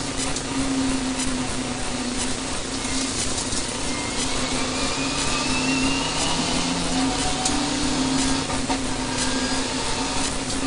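Renault Mégane RS N4 rally car driven flat out on a stage, heard from inside the cabin: steady engine and road noise, with a whine rising in pitch about four seconds in and scattered sharp clicks.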